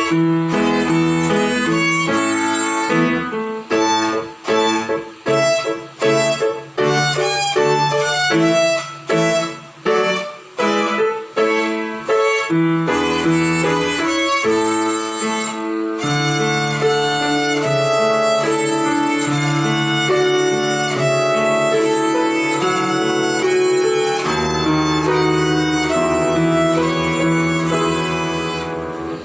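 Violin playing a simple melody over a sustained low accompaniment. The notes are short and separated for about the first twelve seconds, then longer and held.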